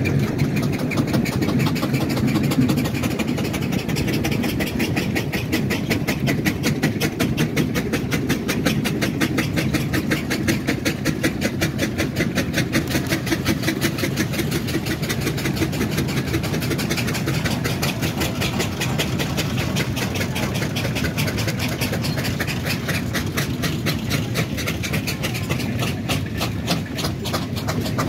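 Steam traction engines working hard under a heavy load, their exhaust beats coming fast and even over a low engine rumble.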